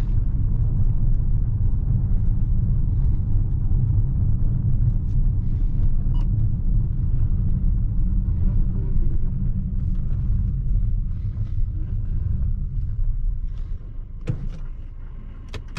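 In-cabin sound of a Jetour X70 with its 1.5-litre turbo four-cylinder driving slowly: a steady low rumble of engine and road. The rumble drops in level near the end as the car slows, and two sharp clicks follow.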